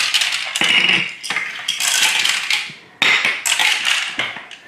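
Small toy pellets rattling and clattering against hard plastic toy truck parts (a toy cement mixer's chute and a toy loader bucket), some spilling onto a wooden floor, in several bursts.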